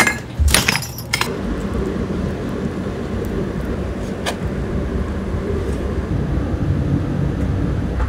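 Sticks of hard binchotan charcoal clinking against each other and the metal tongs as they are picked out of a box, a quick run of sharp clinks in the first second, over a steady low rumble.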